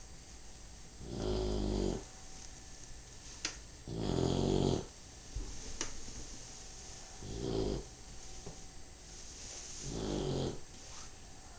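A sleeping pet snoring: four snores, one every two to three seconds, each lasting about a second or less.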